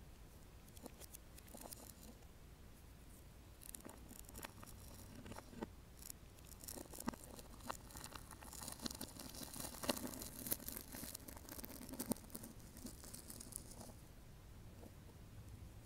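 Fingers handling the two halves of a cut-open plastic toy frog, its filling of small beads clicking and rustling as the halves are pressed back together. There are a few scattered clicks at first, then a denser crackle with some sharper clicks in the middle that tails off near the end.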